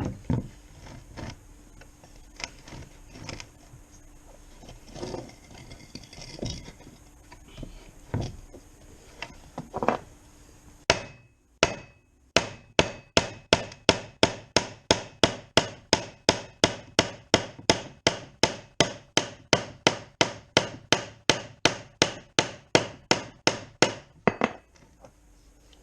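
Hammer blows on a plastic skid plate, beating out an impact dent: a few scattered knocks at first, then from about halfway in a steady run of strikes, about three or four a second, that stops shortly before the end.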